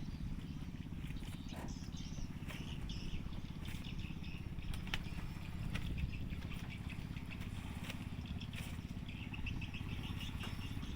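Outdoor ambience: birds chirping in short, repeated calls over a steady low rumble.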